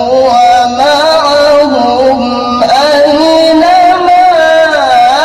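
A male qari reciting the Qur'an in melodic tilawah style, holding long notes with wavering ornaments and slow pitch slides.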